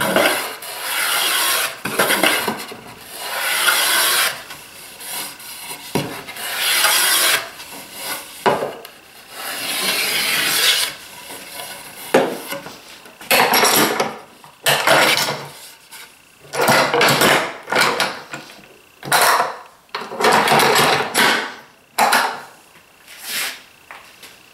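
A hand tool worked in repeated strokes along the edge of a wooden board, breaking its sharp edge. The strokes last about a second each at first and come shorter and quicker in the second half.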